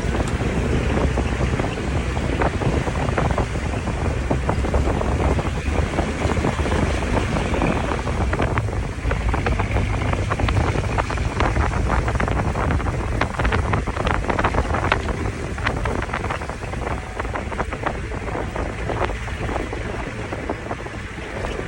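Wind buffeting the microphone with a steady rushing noise and many small crackles throughout.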